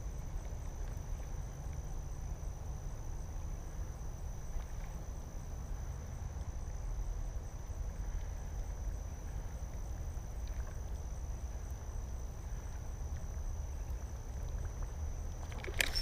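Outdoor ambience: insects giving a steady, high, unbroken buzz over a constant low rumble of wind on the microphone, with a short rustle right at the end.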